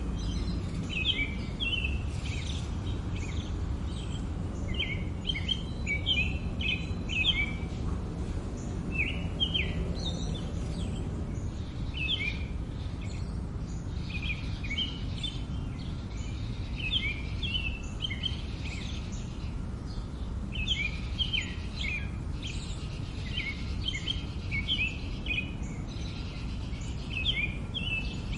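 Small birds chirping in short repeated bursts throughout, over a steady low rumble of background noise.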